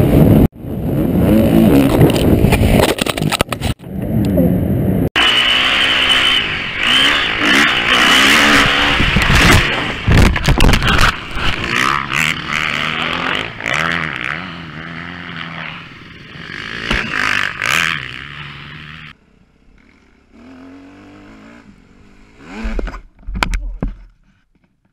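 Motocross dirt bike engine revving hard, heard through a helmet camera, in several short clips cut together. The loud engine noise stops suddenly about 19 seconds in, leaving quieter sounds and a couple of thumps near the end.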